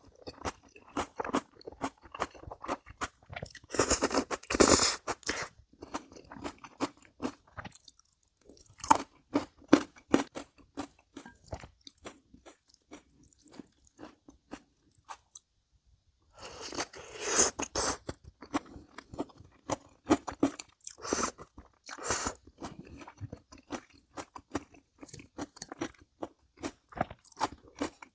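A person chewing and crunching crisp food close to the microphone, with many small sharp crunches and a few longer, louder bursts of eating noise about four seconds in and again around the middle.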